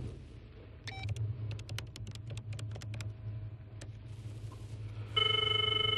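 A telephone being dialed: a string of light, uneven clicks, then a steady ringing tone on the line for about a second near the end.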